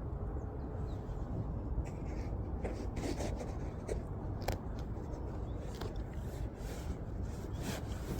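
Chiropractic toe manipulation: a scattering of soft, irregular clicks and rubbing over a steady low hum.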